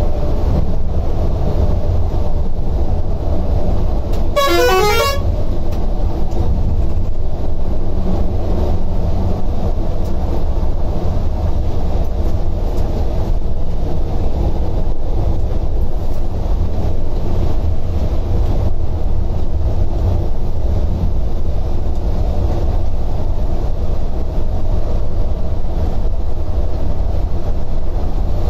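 Scania coach cruising on a highway, heard from inside the cabin: a steady low engine and tyre rumble. A horn sounds once, briefly, about four seconds in.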